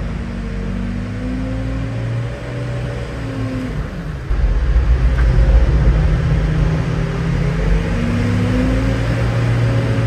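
JCB telehandler engine running hard, heard from inside the cab, while its bucket pushes up a heap of grain. Its note falls about four seconds in, then climbs again near eight seconds, and it gets louder from about four seconds on.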